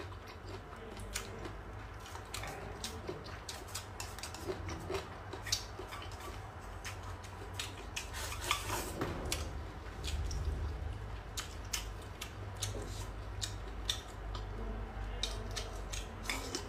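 Close-up eating sounds: biting and chewing boneless chicken feet and green chili pepper, with many irregular sharp clicks of wooden chopsticks against a ceramic bowl.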